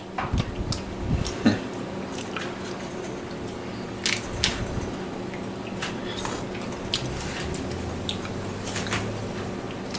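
Pizza cutter rolling and pressing through a chicken quesadilla, giving scattered soft clicks, scrapes and squishy crunches against the cooking surface, with a few heavier knocks in the first second or so.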